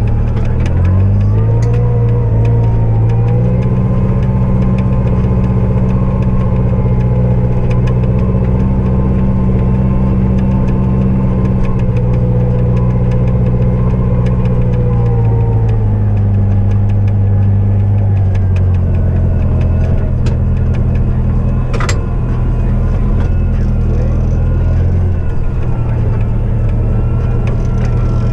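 Snow-clearing vehicle's diesel engine running, revving up about a second in and holding steady, then dropping back in speed in stages through the second half. A single sharp click comes about three-quarters of the way through.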